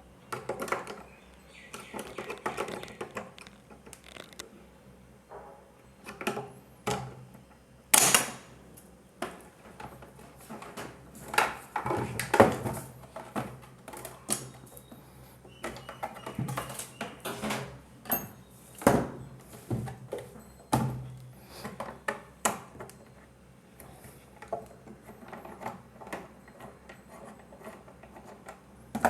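Irregular clicks, taps and clatter of a plastic socket box, cable and hand tools being worked with, with a few sharper knocks, one about eight seconds in.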